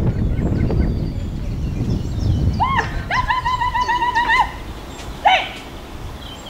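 Whistled calls: two short rising-and-falling notes, then a trilled whistle lasting about a second and a half, and one more short note near the end, over low wind rumble on the microphone during the first couple of seconds.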